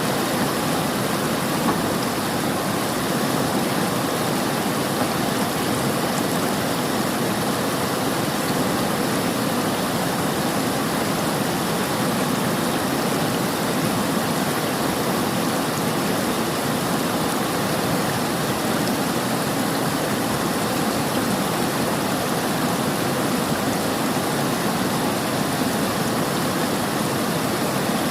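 River water rushing and splashing in a steady, unbroken flow.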